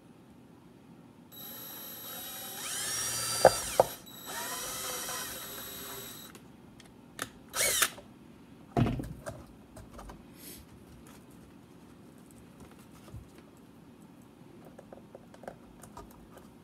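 DeWalt cordless drill with a step bit running for about five seconds, boring through a thin plastic bottle, its whine wavering in pitch as the bit cuts, with two sharp clicks partway. A couple of short bursts and a knock follow, then faint handling noise.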